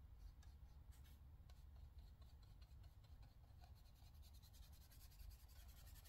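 Faint, scratchy strokes of yellow paint being worked over a paper colouring page, irregular at first and then quick and close together near the end.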